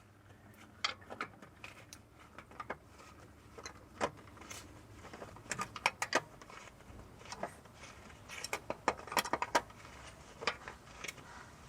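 Scattered light clicks and small metallic clinks from working a spin-on oil filter loose with a filter wrench and gloved hands.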